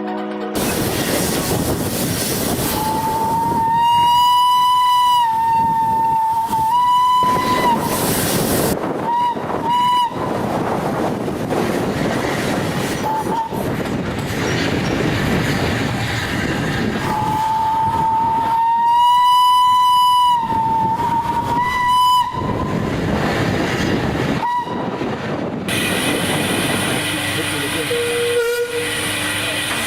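A train horn sounding a single high note in repeated blasts: a long blast of a couple of seconds, then several short toots, then another long blast and a short one, over the loud running noise of a passing train. The sound changes to a quieter, steadier one near the end.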